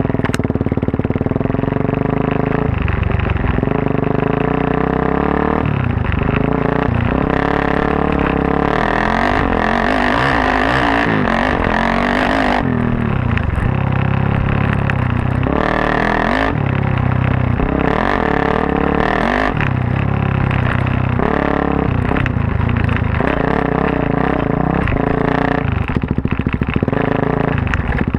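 Single-cylinder four-stroke dirt bike engine, a Suzuki DR-Z400S bored out to 440 with a full Yoshimura off-road exhaust, riding off-road, its pitch rising and falling again and again as the throttle opens and closes through the gears.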